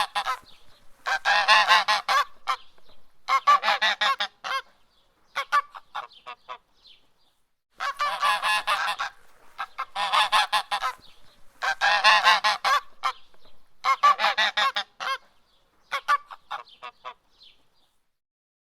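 Canada goose honking, the calls of an attacking goose: bursts of rapid honks, each about a second long, coming every second or two. The last bursts are fainter, and the honking stops near the end.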